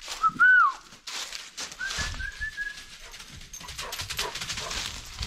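A short, loud whistle that arches up and falls away at the end, then a longer level whistled note about two seconds in. Rustling footsteps through dry fallen leaves follow as a dog runs along the path.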